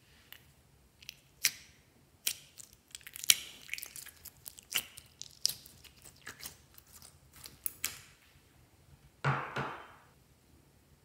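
Clear blue slime with beads pulled sticky from a plastic dish: a run of crackling, popping clicks, then a louder squish about nine seconds in as it drops into the bowl.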